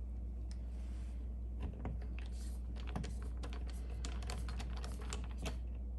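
Rapid, irregular small clicks and taps of a flathead screwdriver working the two screws of a plastic GFCI outlet cover plate, most dense through the middle.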